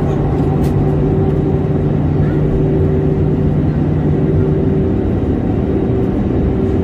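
Steady engine and road noise of a vehicle under way, with a low hum that drops out about five seconds in.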